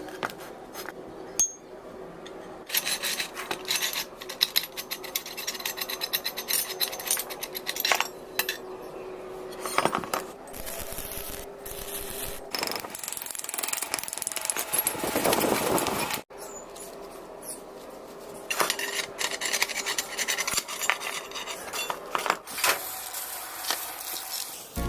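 Metal tools and parts being handled and worked by hand: many light clinks and clicks, with stretches of scraping and rubbing.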